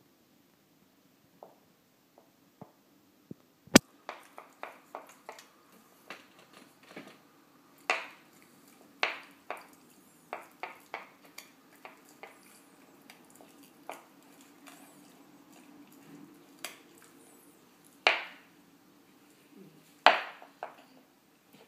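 Pembroke Welsh Corgi puppy gnawing a bully stick: irregular clicks and small knocks of chewing. There is one very sharp click about four seconds in, and a few louder knocks come later.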